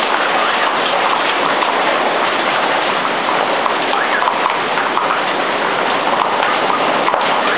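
Heavy storm rain falling steadily, a dense even hiss.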